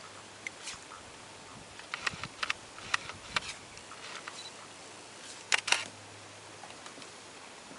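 Scattered sharp clicks and ticks, a cluster of them a couple of seconds in and a loud double click about five and a half seconds in, over a faint steady hiss and low hum.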